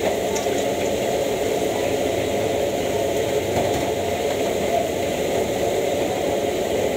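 Gas wok burner running at full flame under a wok, a steady rushing noise.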